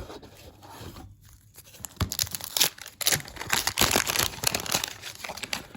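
Wax-paper wrapper of a 1989 Fleer baseball card pack being torn open and crinkled by hand. The crackling starts about two seconds in and keeps going in quick, irregular bursts.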